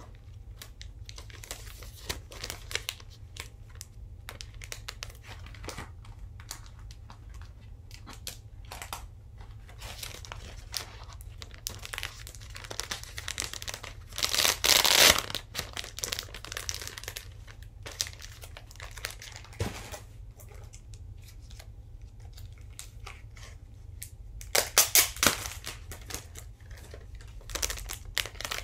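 Paper and packaging rustling and crinkling as a spiral-bound notebook is handled and leafed through, with two louder bursts of crinkling, one about halfway through and one near the end.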